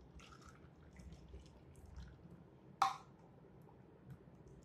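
Faint trickling of water poured into a hanging paper cup and running out through its straws into a plastic basin. One sharp click about three seconds in.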